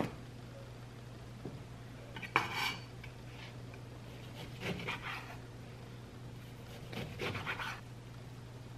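Kitchen handling sounds: a glass blender jar being handled and set down, and a chef's knife cutting an orange on a wooden cutting board, heard as a few short scrapes and knocks. The sharpest comes about two and a half seconds in, with more near the middle and near the end, over a steady low hum.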